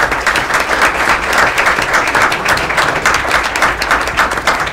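Audience applauding: many hands clapping together, starting abruptly.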